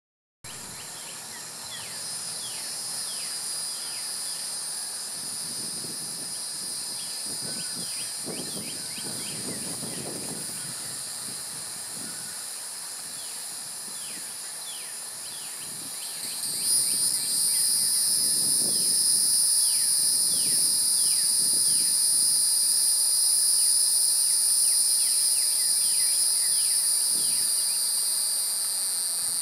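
An insect chorus: a steady, high-pitched buzzing in several layers that grows louder a little past halfway. Many short falling chirps and a few soft low whooshes run underneath it.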